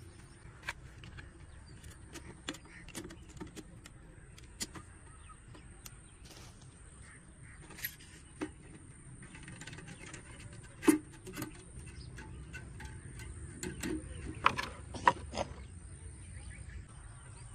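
Scattered clicks and knocks of a plastic jar, wire and small parts being handled, with the loudest knock about eleven seconds in and a quick cluster of them near the end.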